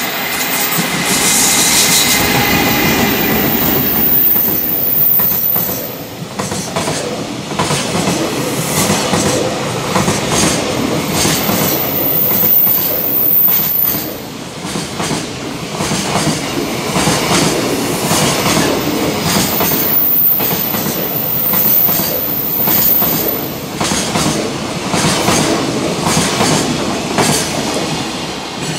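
EF210 electric locomotive passing at speed with a long container freight train. There is a high whine from the locomotive in the first few seconds, then the wagons' wheels keep up a continuous rhythmic clickety-clack over the rail joints.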